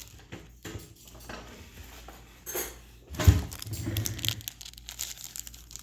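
An empty Pokémon card pack wrapper being crushed and thrown into a trash can: faint rustling, then a single dull thump about three seconds in followed by more crinkling.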